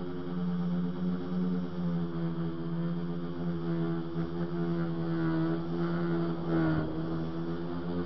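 Multirotor tricopter's three motors and propellers humming steadily from close on board, with a brief dip and rise in pitch about six and a half seconds in.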